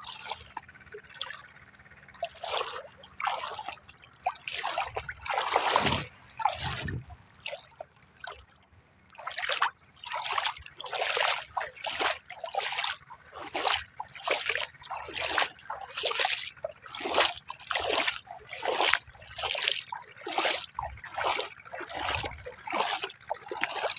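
Shallow river water splashing and trickling at close range, in short splashes that come about one or two a second through the second half.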